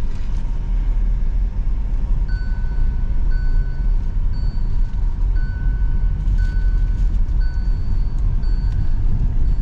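ACE Forma tractor's Kirloskar diesel engine running steadily on the move with a low rumble. From about two seconds in, a short electronic beep sounds about once a second over it.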